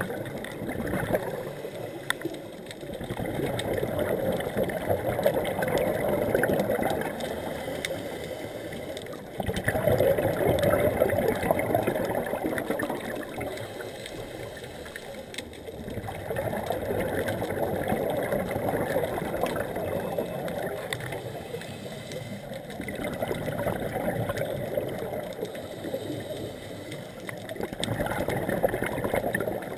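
Scuba regulator breathing heard underwater: four surges of exhaled bubbles gurgling, each a few seconds long, with quieter stretches between breaths.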